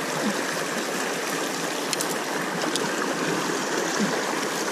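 River water rushing steadily over and around rocks, a constant even wash.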